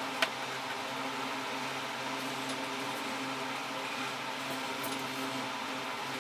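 Steady background hum and hiss of room noise, with one sharp click just after the start.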